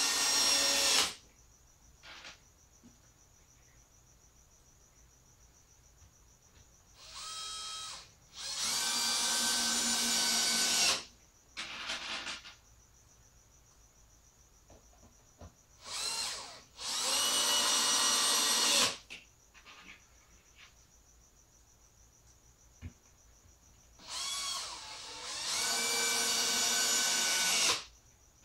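Cordless drill driving 1¼-inch screws through a wooden box top into its sides. One run ends about a second in. Then three more screws go in, each starting with a short trigger blip followed by a steady whir of two to three seconds, with small clicks between screws.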